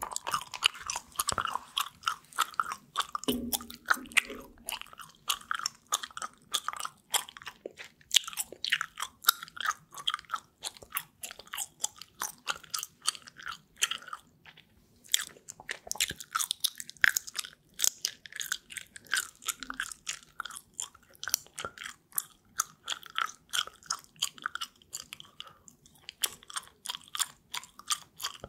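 Gum chewed right up against a microphone: a steady, irregular stream of short, crisp mouth clicks, several a second.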